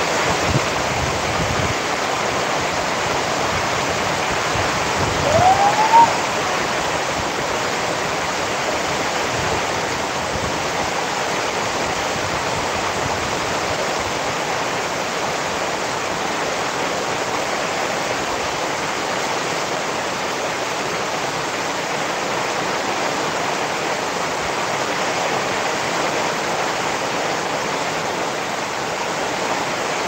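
Steady rain falling, an even hiss of water. About five seconds in, a brief rising squeak-like tone sounds over it, the loudest moment.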